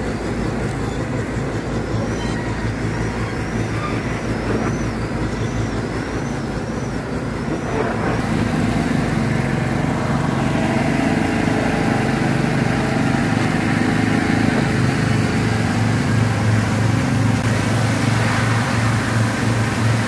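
Concrete mixer pump's engine running steadily, a heavy low hum that grows stronger after about eight seconds. A repeated high chirp sounds over it in the first several seconds.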